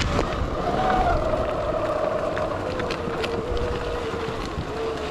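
Sur-Ron electric dirt bike's motor whining as it rides, its pitch drifting slightly lower, with wind rumbling on the microphone and a few scattered clicks.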